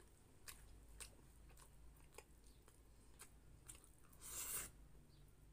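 Close mouth sounds of a man eating rice and tuna in coconut sauce by hand: soft, wet chewing clicks and smacks about every half second. A louder, longer smack comes about four seconds in, as he takes another handful into his mouth.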